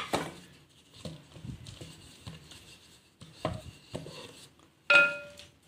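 Kitchen handling on a wooden board: scattered soft taps and knocks, then a short ringing clink about five seconds in, the loudest sound.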